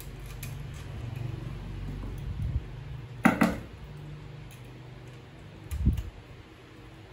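Parts of a wall fan knocking and clinking as they are handled during reassembly. There is a sharp clack about three seconds in and a duller knock near six seconds.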